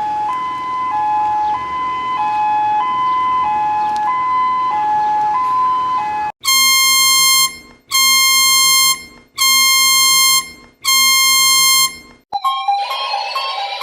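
Emergency alert alarm tones played in sequence. First a two-tone hi-lo siren switches pitch about every half second, then four long, buzzy beeps sound about a second and a half apart. Near the end a different alarm with rising, warbling tones starts.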